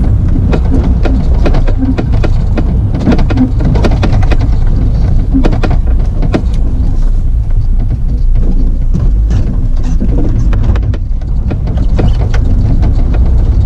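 Rover 220 Coupe rolling slowly across a rough gravel car park, heard from inside the cabin: a steady low rumble with tyres crunching and a constant scatter of stones popping and clicking.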